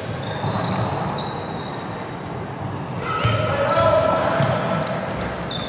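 Indoor basketball game play: shoes squeaking in short high chirps on the court and a ball bouncing. Voices call out, stronger from about halfway through.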